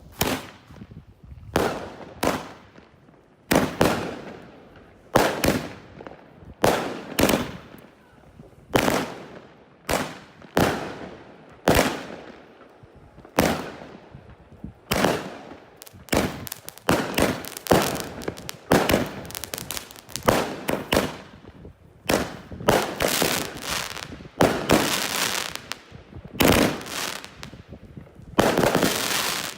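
Consumer fireworks from a retail assortment going off: a long run of sharp bangs, about one a second, each trailing off quickly. The bangs come closer together and overlap in the last several seconds.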